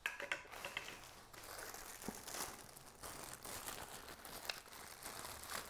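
Clear plastic packaging bag crinkling and rustling as a sealed vacuum accessory is lifted out and handled, with irregular small crackles throughout.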